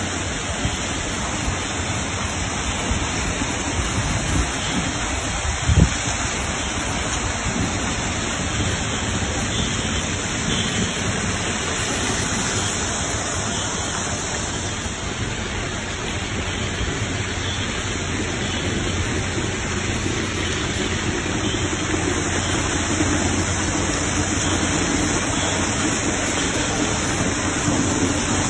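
Steady rushing hiss of falling water, with a single thump about six seconds in.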